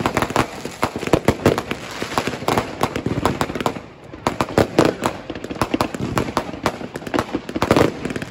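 Fireworks and firecrackers going off in a dense, rapid series of sharp cracks and bangs, several a second, with a brief lull about four seconds in.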